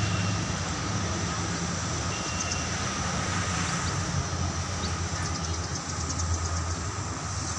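Steady outdoor background din with a constant low hum underneath.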